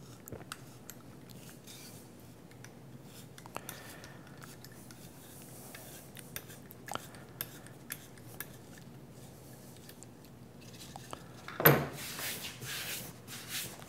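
Hand tap in a T-handle tap wrench cutting 1/4-20 threads in a 3D-printed carbon-fiber nylon part, cleaning up undersize printed holes: faint scraping with small scattered clicks. Near the end, louder knocks and rubbing as the printed part is handled on the table.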